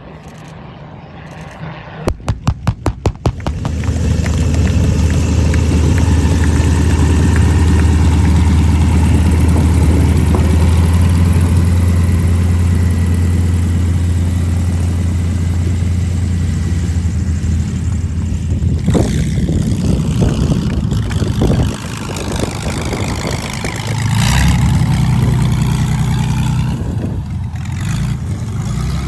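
A light aircraft's piston engine is started: a quick run of firing pops about two seconds in, then it catches and runs steadily at idle. About twenty-four seconds in, a fuller, louder engine note takes over.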